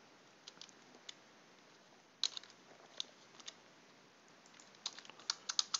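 Computer keyboard keystrokes, scattered single taps with a quick run of keys near the end, as a filename is typed.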